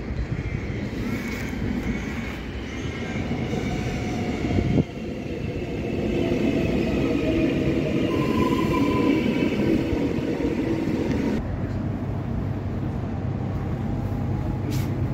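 X'trapolis electric suburban train running into the platform and braking, its motor whine falling in pitch as it slows. A sudden cut about eleven seconds in gives way to the steady low hum of the carriage interior.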